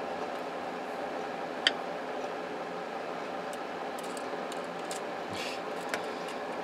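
A few small clicks and a brief scrape from handling a cordless phone handset's plastic parts and a screwdriver, over a steady background hiss; the loudest is one sharp click a little under two seconds in.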